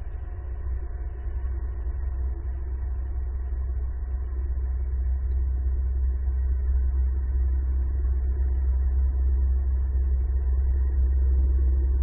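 A low, steady engine-like rumble that grows louder over the first several seconds, then holds.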